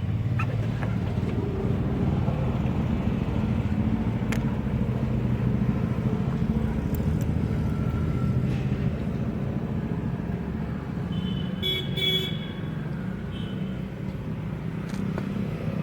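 Steady rumble of road traffic, with a vehicle horn tooting briefly about twelve seconds in and a few sharp clicks scattered through.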